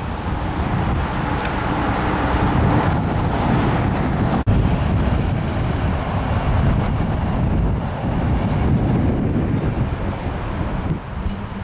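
Car engines running at low speed, mixed with wind buffeting the microphone, with a brief dropout about four and a half seconds in.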